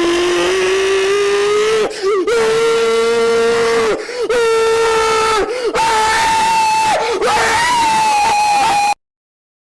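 A person's voice screaming in a run of long held notes, each lasting a second or two with brief breaks between them. The pitch steps higher as it goes, and the last two notes are about an octave up. It cuts off abruptly near the end.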